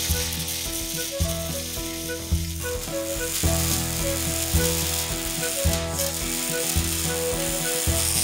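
Electric arc welding: the arc gives a steady crackling sizzle as the welder drags the weld puddle along the metal. Background music with a bouncing bass line plays underneath.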